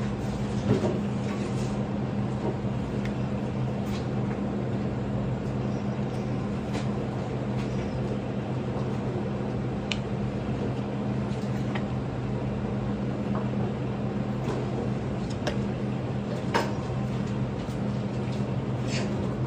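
Steady low mechanical hum of commercial kitchen machinery, with a few faint knocks of a knife blade against a plastic cutting board as fish is sliced.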